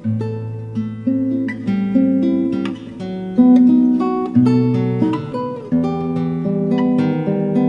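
Solo classical nylon-string guitar played fingerstyle: a run of plucked notes ringing on, a melody over sustained bass notes.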